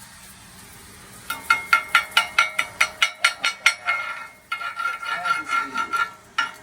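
Slag being cleaned off a stick-weld bead on a steel practice plate: rapid metal strokes, about five a second, each leaving the plate ringing. There is a short break about four and a half seconds in, then the strokes go on.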